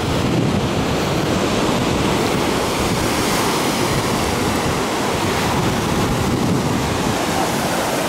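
Small sea waves breaking and washing over a flat rock shelf at the water's edge, a steady surf wash, with wind noise on the microphone.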